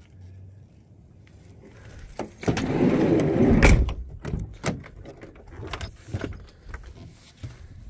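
Rustling handling noise, then a sharp click and a scatter of smaller clicks and knocks as a Chevrolet Astro van's front door is unlatched and swung open.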